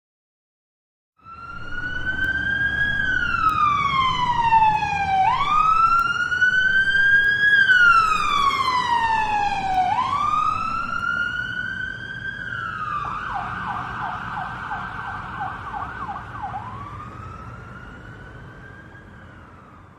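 Police car siren starting about a second in, wailing in slow rising and falling sweeps, switching to a rapid yelp for a few seconds, then back to a wail that fades away, over a low vehicle rumble.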